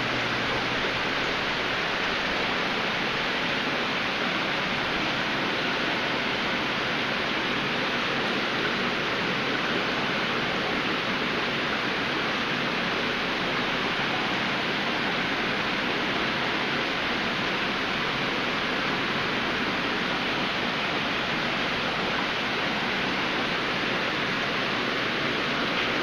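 Aquarium filtration and moving tank water making a steady, even rushing noise.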